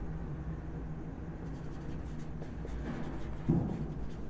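Marker pen writing on a whiteboard in a run of short strokes, over a low room hum. A brief low vocal hum comes about three and a half seconds in.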